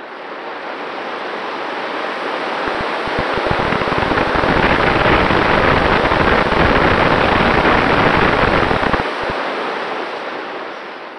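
Wind rushing over the onboard camera's microphone as the XK A1200 RC glider dives. It builds steadily to a loud buffeting rumble in the middle as airspeed rises, then eases off near the end.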